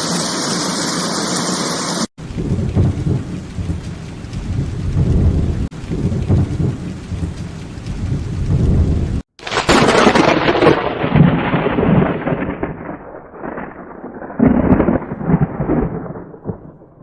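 Steady heavy rain hiss, then thunder rumbling in rolling waves. About nine seconds in comes a louder thunderclap that rumbles on and slowly fades.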